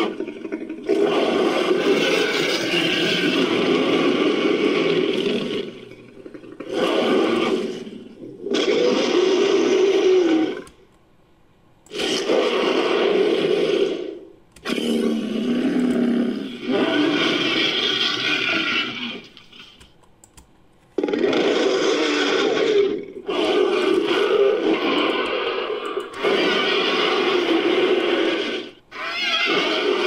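Fan-made creature roar sound effects for a hybrid 'Allospinosaurus', built from edited dinosaur and monster roar recordings: a string of about nine deep roars and growls, most lasting a few seconds, with short silent gaps between them.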